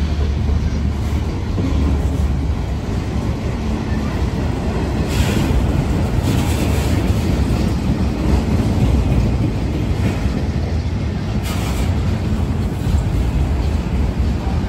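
Autorack freight cars rolling past on the rails: a steady low rumble of steel wheels on track, with a few brief hissing swells about five, six and eleven seconds in.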